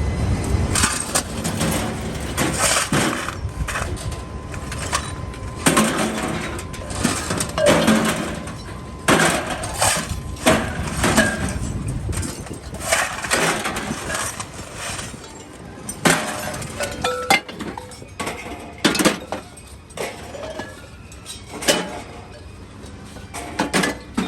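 Scrap metal clanking and banging in irregular impacts, some ringing briefly, over a low machine rumble that fades about halfway through.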